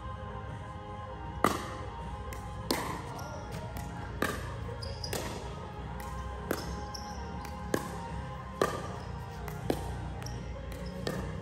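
A ball hitting hard ground or a surface again and again, sharp single impacts about once a second at an uneven pace, with a few short high squeaks between them. Background music plays underneath.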